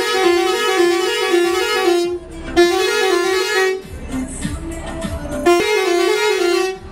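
A truck's musical horn playing a short stepped tune, sounded in three bursts with a pause of nearly two seconds before the last.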